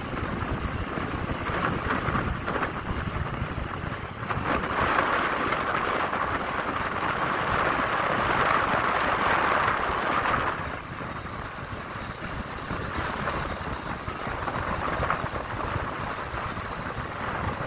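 Wind rushing over the microphone of a moving vehicle, with road and engine noise underneath. The rush swells about four seconds in and drops back after about eleven seconds.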